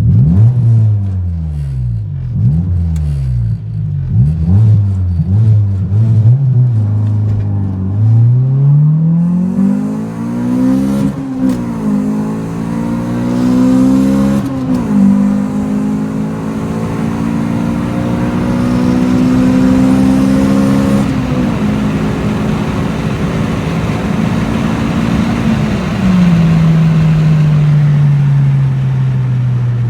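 Honda Civic Si's B16A2 four-cylinder engine, breathing through an aftermarket intake and cat-back exhaust, being revved: a string of quick throttle blips, then a climb to higher revs held for several seconds with a few sharp dips, before settling back to idle about 26 seconds in.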